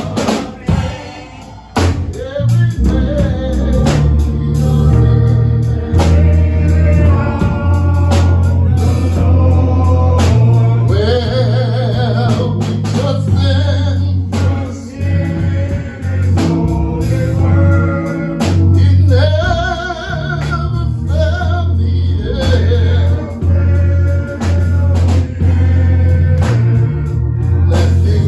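Gospel devotional song sung live by a male song leader and the congregation, with a drum kit and a heavy bass line.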